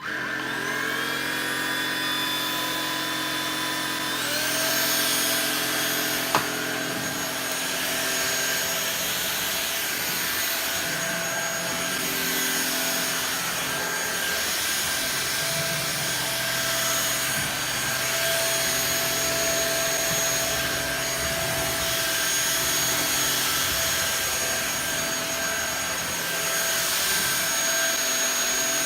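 Oraimo cordless stick vacuum's motor switching on and spinning up, its whine rising, then stepping up to a higher pitch about four seconds in and running steadily, with a single click a couple of seconds later.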